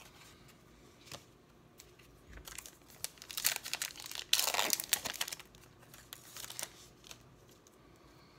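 A trading card pack's wrapper being torn open and crinkled: a few seconds of crackly rustling starting about two seconds in, loudest in the middle.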